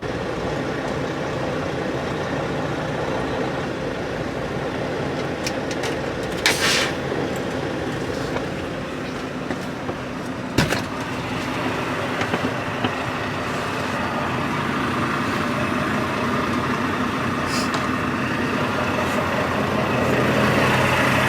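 Semi truck's diesel engine running with a steady drone. There is a brief hiss about six seconds in and a sharp click about ten seconds in.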